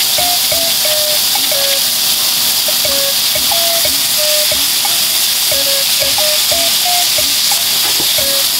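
Mixed ground beef and pork sizzling steadily in oil in a frying pan with chopped onion and leek, stirred and broken up with a ladle.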